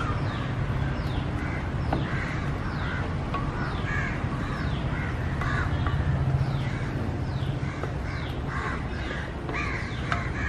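Crows cawing over and over, with a steady low hum underneath.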